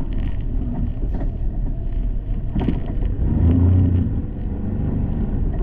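Side-by-side UTV engine running over a rough dirt trail, with a knock about two and a half seconds in and louder throttle for about a second just after.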